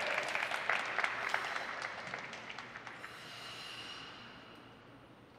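Scattered applause from a small audience, dying away over the first two seconds or so and leaving a faint background.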